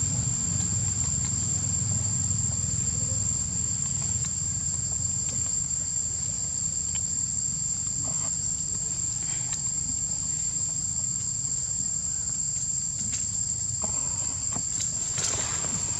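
Steady high-pitched drone of insects, one unbroken tone, over a low rumble. A few faint rustles near the end.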